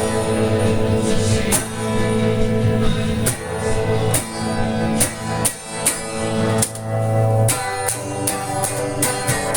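Guitar strumming chords in an instrumental passage of a song, the chords ringing between strokes, with the strokes coming quicker near the end.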